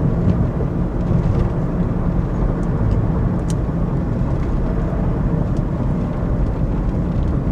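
Steady low rumble of a car on the move, engine and tyre noise heard from inside the cabin, with a few faint ticks.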